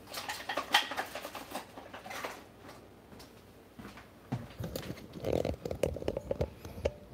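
Light clicks and rustling, then a few seconds of bumping and rubbing handling noise as the camera is picked up and carried down to the kitchen counter.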